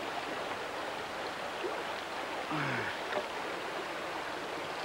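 River water running steadily, an even rushing hiss. About two and a half seconds in there is a brief low falling voice sound.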